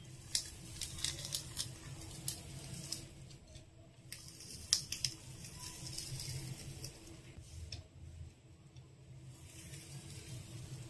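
Hand-held idiyappam press being squeezed, pushing soft rice-flour dough out as thin strings onto a cloth: light clicks and creaks from the press, with a soft squishing rustle between them.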